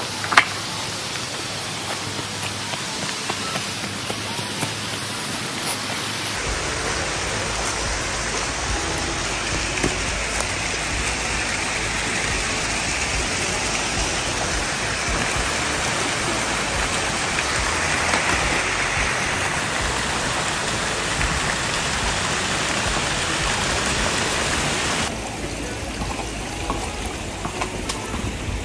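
Stream water spilling over a concrete check dam into a pool: a steady rushing, louder from about six seconds in until near the end.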